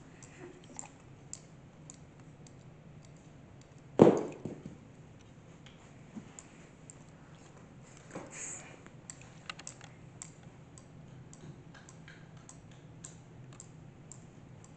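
Scattered light clicks and knocks, with one loud, sharp thump about four seconds in and a smaller knock about eight seconds in, over a faint steady low hum.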